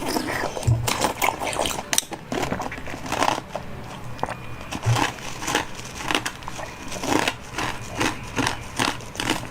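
Close-up eating sounds: irregular crunches and crackles of food being bitten and handled.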